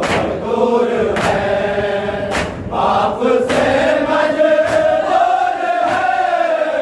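Men chanting a noha (a Shia mourning elegy) together, the sung line held in long notes. It is crossed by sharp slaps of matam (chest-beating) every second or so.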